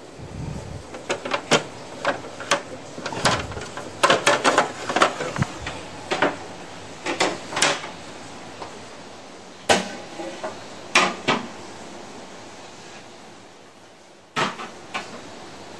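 Irregular knocks and clatter of things being handled in a kitchen cupboard, with many sharp knocks in the first eleven seconds and a couple more near the end.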